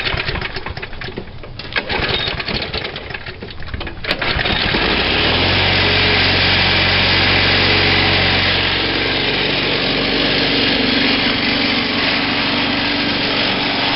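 Walk-behind lawn mower engine with a bent crankshaft: after about four seconds of uneven noise it catches with a sharp click and runs loudly and steadily, its pitch shifting partway through. Racing and rattling like this is the sign of the crankshaft bent by running over tree roots.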